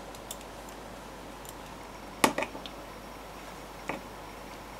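A few short, sharp metallic clicks of a Torx screwdriver bit catching on the screws in the base of a Sonos Play:1 speaker, the loudest about two seconds in. The T10 bit does not fit the chewed screw heads well.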